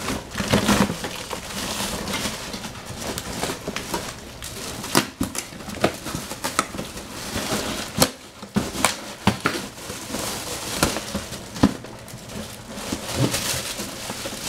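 Plastic wrap and tape being torn and pulled off a cardboard box by hand: irregular crinkling and rustling with sharp snaps now and then.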